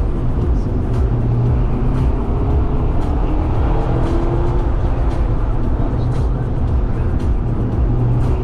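Mazda MX-5 Roadster on the move: a steady low rumble of engine and road noise, with the engine note slowly rising in pitch about halfway through.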